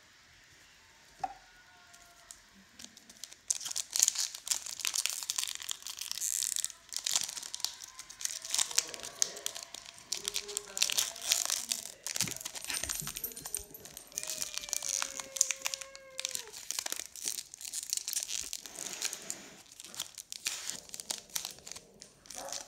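Foil booster-pack wrapper of Pokémon trading cards crinkling and tearing as it is pulled open by hand. The crackling starts a few seconds in and goes on in irregular spurts.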